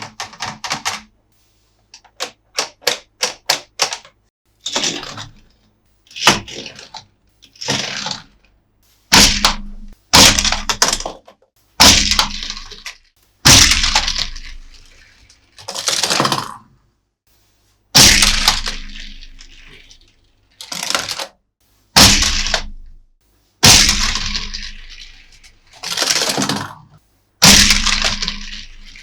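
Handling of a plastic toy playset and its parts: a quick run of small clicks in the first few seconds, then a string of sharp cracks and snaps, one every second or two, each fading quickly.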